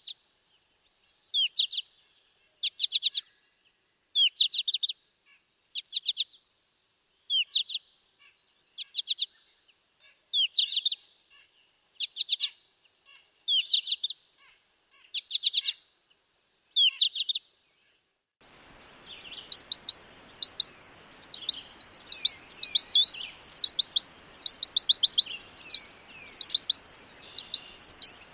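American goldfinch calling: short high clusters of quick notes repeated about every second and a half, then, after a change of recording about two-thirds of the way in, a faster, near-continuous twittering over faint hiss.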